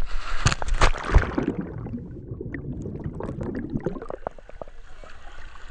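Two people jumping feet-first into the sea with loud splashes. The sound then turns muffled and gurgling as the camera goes underwater. About four seconds in, clear splashing and lapping water return as it surfaces.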